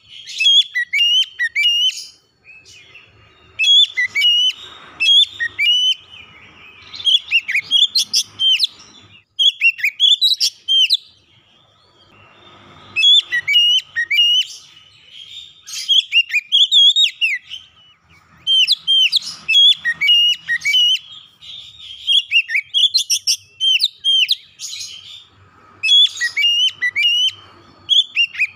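A male Oriental magpie-robin singing: phrases of quick, sweeping whistled notes, one burst after another with short pauses between.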